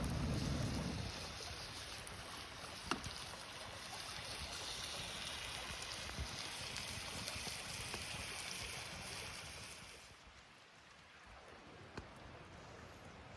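Steady rush of a flowing river, with a light knock about three seconds in; the sound drops quieter about ten seconds in.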